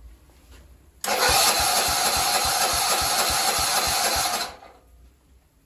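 1999 DR Brush Mower's engine being cranked for about three and a half seconds, turning over with an even beat of about four or five compression pulses a second but never firing: a failed cold start at 15°F, even with choke and a shot of starter fluid.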